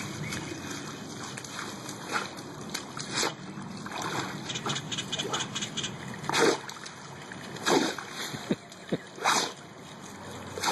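Water running and splashing as a Labrador plays in it, with several short, sharp splashes in the second half.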